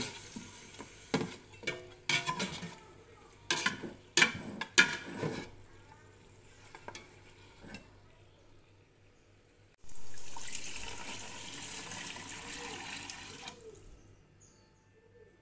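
Metal spatula knocking and scraping against an aluminium pot while stirring chicken frying in a little oil, with a light sizzle. Just before ten seconds in, a sudden hissing rush of water sets in as water goes into the hot pot, then slowly fades.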